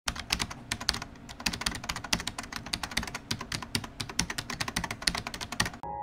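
Rapid computer-keyboard typing, a dense run of quick clicks that stops abruptly near the end.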